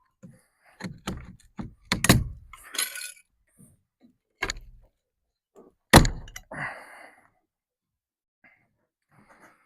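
Wooden shipping crate being taken apart: a series of sharp knocks and cracks of boards and nailed wood, with brief rattles between them. The loudest knock comes about six seconds in, then things go quiet.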